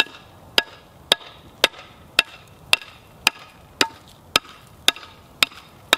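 Homemade pickaxe chopping at ice on a driveway: sharp, steady strikes at about two a second, each with a brief crack as the ice breaks up.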